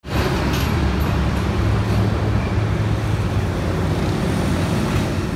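Steady road traffic noise with a low engine rumble underneath and no distinct events.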